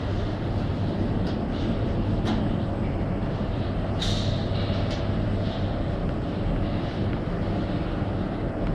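Steady drone of a running inline sputtering coating line's machinery, with a constant low hum and a few light clicks scattered through it.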